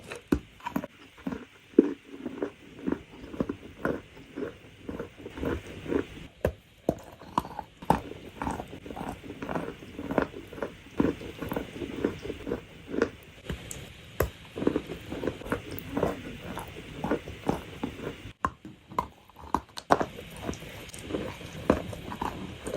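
Wet, sandy, grainy material crunching over and over, about two crunches a second, with a brief break near the end where one clip gives way to the next.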